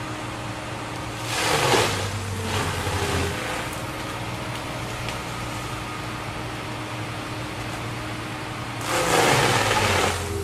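Excavator-mounted Shin Systems forestry mulching head running at speed, driven by its auxiliary hydraulic power pack, with a steady machine drone. Twice, briefly about a second and a half in and again near the end, the spinning steel teeth bite into a hardwood chestnut oak with a loud burst of grinding, and the engine pitch bends under the load.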